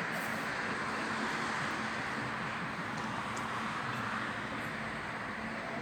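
Steady running noise of a train with a faint low hum.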